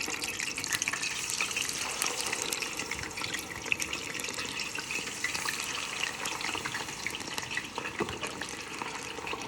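Small-cut potato fries frying in hot canola oil: a steady sizzle with many fine crackles and pops. This is the first fry of a double fry.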